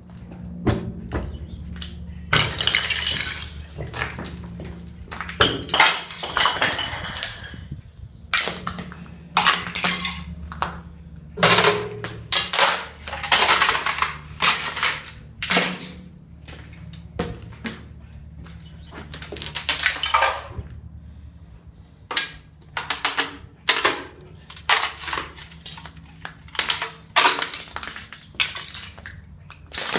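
Thin sheet ice over shallow water being broken up: a long run of irregular sharp cracks and crunches, some of them drawn out over a second or two.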